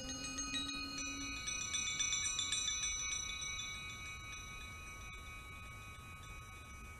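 Metallic percussion chimes ringing: a cluster of quick high strikes from about one to three seconds in, leaving many high tones that slowly fade. A low sustained note dies away early on.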